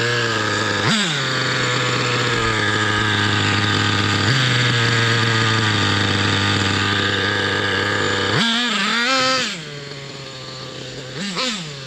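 Small nitro glow engine of an RC monster truck (Thunder Tiger EK4 S2 with a Pro 70BX engine) running at a steady high idle, with a brief dip in pitch about a second in. After about eight seconds it revs up and down in quick blips, fainter for a while as the truck moves away, then blips again near the end.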